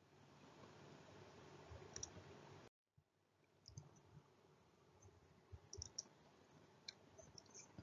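Near silence: faint room tone with a few soft, scattered clicks and a brief drop to dead silence about three seconds in.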